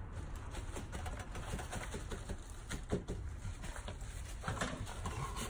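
Irregular small clicks and rustles with a few brief squeaks near the end, from hands pressing a rubber molding strip onto the edge of a windshield laid on plastic sheeting.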